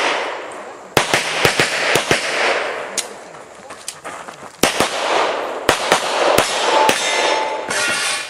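Rapid pistol fire from a Rock Island Armory Pro Ultra Match in .40 S&W, shooting major-power loads. The shots come in quick pairs and strings a fraction of a second apart, each with a short echo, with brief pauses between strings as the shooter moves between target arrays.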